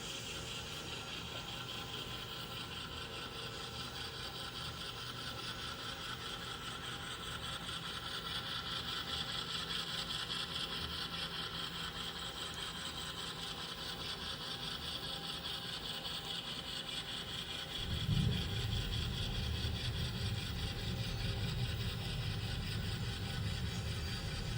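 N scale model train running on the layout: a steady motor hum and whine that gets gradually louder, then a deeper, louder rumble that comes in suddenly about three-quarters of the way through and holds.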